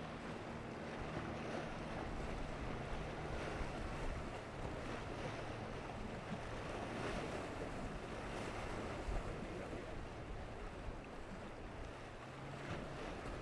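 Single Yamaha outboard motor on a small Monark fishing boat running through choppy water, a low steady engine hum under the rush and splash of spray and waves, with wind buffeting the microphone.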